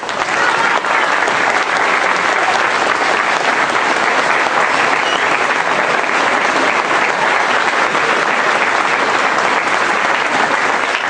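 Audience applauding, starting suddenly and holding steady and full.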